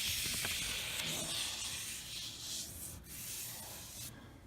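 Drywall tape being pressed and rubbed into wet joint compound on a ceiling joint: a steady rubbing hiss that fades out about four seconds in.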